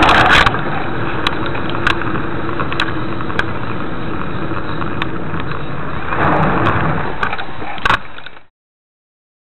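Car engine and road noise, steady, with a few faint clicks and a swell about six seconds in; the sound cuts off abruptly shortly before the end.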